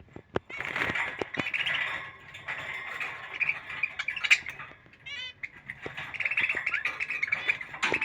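Budgerigars warbling and chattering in a continuous run of rapid chirps, with a brief lull about five seconds in, and scattered sharp clicks in between.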